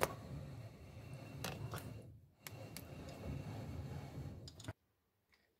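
Faint handling noise from a handheld camera being moved about, a low irregular rumble with a few light clicks and ticks, cutting off abruptly to dead silence near the end.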